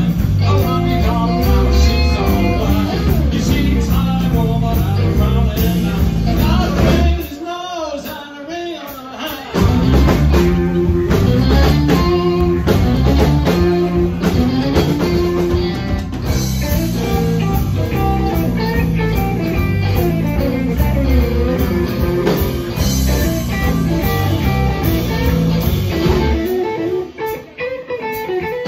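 Live blues-rock band playing: electric guitar over bass and drums, with a singer. The band drops out into a short break twice, about seven seconds in and again near the end.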